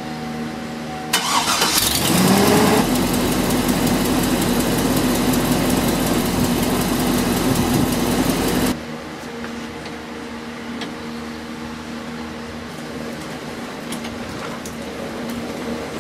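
2003 Chevrolet Silverado pickup's engine starting: it cranks and catches with a rising note about two seconds in, then runs loud and steady. A little before the nine-second mark the sound drops abruptly and the engine keeps idling more quietly.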